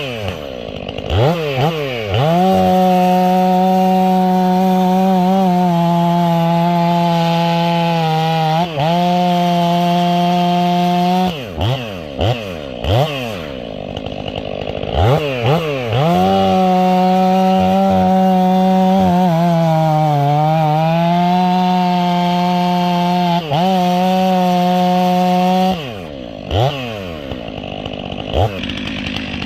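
Stihl 500i chainsaw, its muffler baffle removed and outlet port opened, held at full throttle for two long stretches of about nine seconds each. Short rising and falling throttle blips come between and around them.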